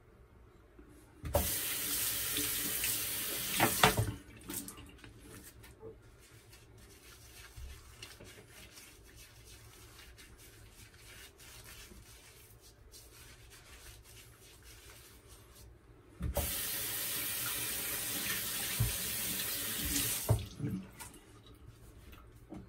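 A sink tap runs twice, about three seconds the first time and about four seconds the second, with water splashing into the basin.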